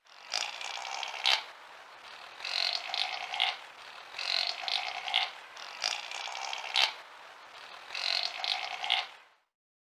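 Chamois calling: five raspy calls, each about a second long, coming roughly every one and a half to two seconds, each ending in a sharp click.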